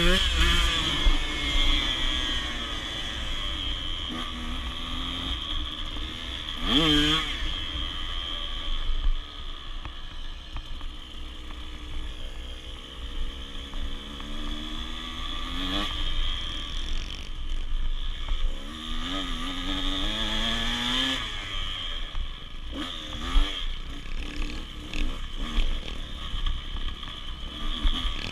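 Dirt bike engine being ridden, its pitch rising and falling with the throttle, with sharp revs about seven seconds in and again near sixteen seconds.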